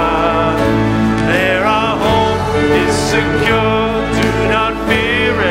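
Recorded worship song: a singer with vibrato over sustained instrumental backing.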